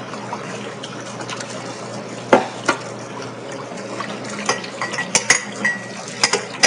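Kitchen utensils and dishes clinking and knocking, a scatter of irregular clinks, a couple ringing briefly, over a steady low hum.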